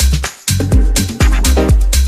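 Electronic dance music with a steady kick-drum beat, briefly dropping out a little before half a second in.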